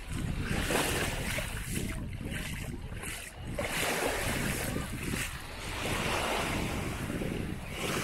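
Sea waves washing in, swelling and fading every couple of seconds, with wind rumbling on the microphone.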